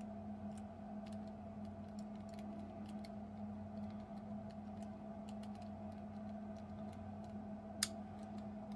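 Faint, irregular clicking of a Master Lock 875 combination padlock's number dial being turned by thumb while the shackle is held under tension, as the dial is felt through its positions for the loose spot; one sharper click near the end. A steady low hum runs underneath.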